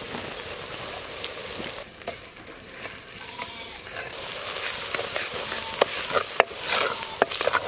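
Green chillies, shallots and garlic sizzling in hot gingelly oil in a clay pot, with a steady hiss. In the second half a wooden ladle stirs the mixture, adding a few sharp clicks and knocks.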